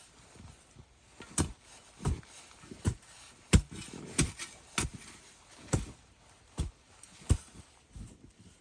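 Footsteps in snow at a steady walking pace, each step a short, sharp thud.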